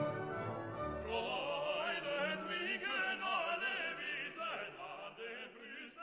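Background music: a sustained orchestral chord, then from about a second in an operatic voice singing with a wide vibrato.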